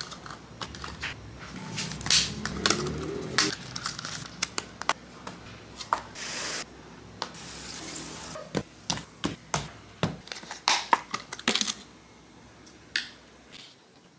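Clear plastic dessert tubs handled and set down, then stacked, on a wooden table: a run of sharp clicks and knocks, with two short scraping noises near the middle.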